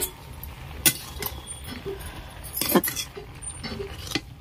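Metal cooking utensils clinking against a pot, with two sharp strikes about a second in and near three seconds in and a few lighter clinks between.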